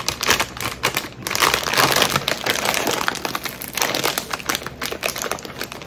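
Potato chip bag crinkling and crackling over and over as hands pull and twist at it, trying to tear it open.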